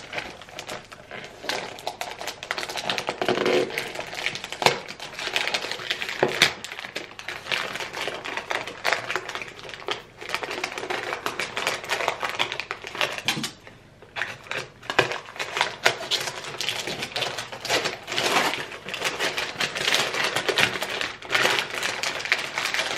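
Gift wrapping paper being picked at and torn open by hand: an irregular run of crinkles, rips and sharp ticks.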